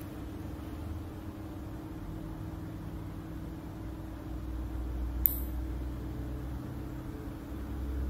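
One sharp snip of toenail clippers cutting through a toenail about five seconds in, over a steady low hum.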